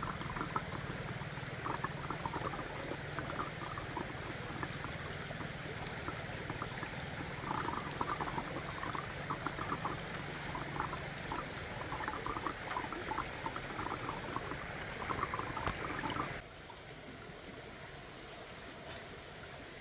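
Water running and bubbling, with a low rumble underneath. It cuts off suddenly about sixteen seconds in, leaving a quieter background with insects chirping in short pulsed trills.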